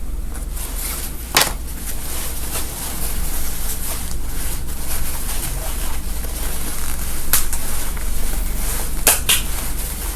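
Scissors cutting through gown fabric: a few separate sharp snips, two of them close together near the end, over a steady low hum.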